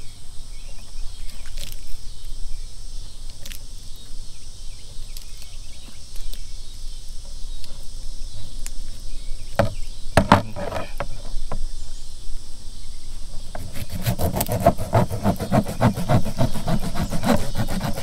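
Knife scraping and clicking as a catfish carcass is cleaned out along the spine: scattered strokes, then a fast run of scrapes in the last few seconds. Insects drone steadily underneath.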